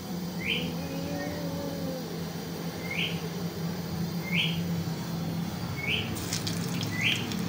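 A bird chirping: five short, rising chirps, a second or two apart, over a steady low hum.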